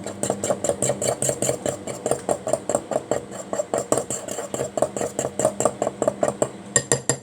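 A fork whisking thick cake batter in a mug, clinking against the sides fast and evenly, about six strokes a second. The clinking stops just before the end.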